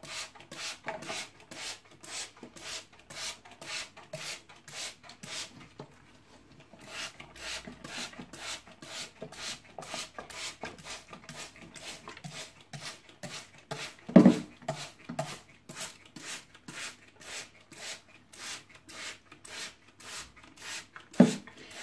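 Trigger spray bottle misting water over bark chips, squeezed over and over at about two to three spritzes a second, with a short pause about five seconds in. Two louder knocks, one a little past the middle and one near the end.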